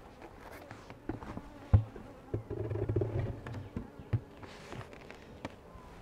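Metal-clad telescoping outer cover being lowered onto a wooden beehive and settled into place: a few knocks, a sharp one about two seconds in and another about four seconds in, with a rough rubbing rumble for about a second as the lid is worked down. Bees buzz faintly.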